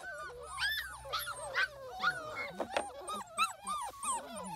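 A litter of doodle puppies whining and yipping: many short, high-pitched calls that rise and fall, several puppies at once and overlapping.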